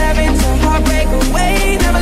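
Music track with deep bass notes and a steady drum beat.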